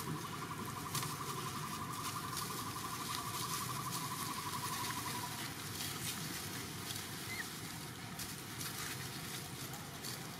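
Forest ambience of light rustling and pattering on dry leaves and wood as young macaques move about, with many faint clicks. A fast, high pulsing trill runs through the first five seconds or so, then stops.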